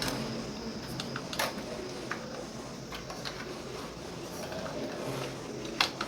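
Scattered light clicks and taps from handling a small plastic quadcopter and its battery, after a faint steady high whine stops about a second in.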